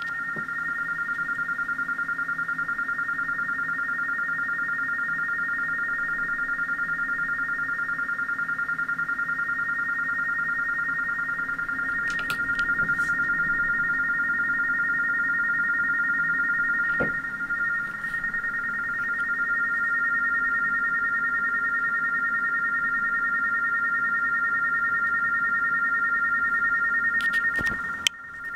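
RTTY data signal from an NTX2 radio transmitter module driven by an Arduino, received on a Yaesu transceiver in USB mode and heard from its speaker: two steady tones a few hundred hertz apart, warbling rapidly as the data keys between them. A few faint clicks come and go, and the tones drop out briefly near the end.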